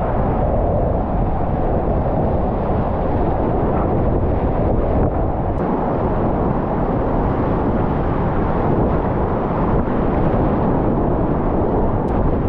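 Whitewater rapids rushing in a steady, loud wash of noise, with wind buffeting the microphone.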